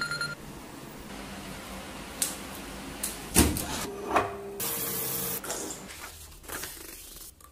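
A phone alarm's beeping tone that stops as the alarm is swiped off, then household handling noises: scattered knocks, and a knock with a short ring as a drinking glass is taken from a shelf. A brief hiss follows about five seconds in.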